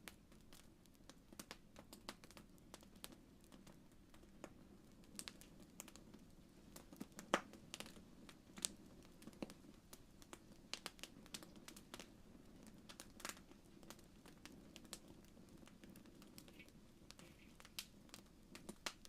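Campfire wood crackling and popping: irregular sharp pops over a quiet steady low rush, with one louder pop about seven seconds in.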